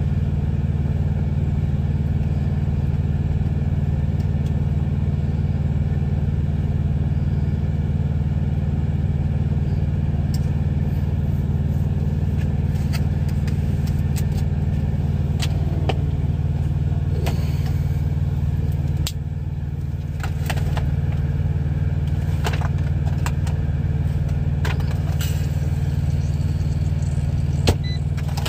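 Steady low drone of an idling engine heard inside a truck cab, dipping briefly about two-thirds of the way through. Scattered clicks and clinks of tongs and dishes sound over it, mostly in the second half.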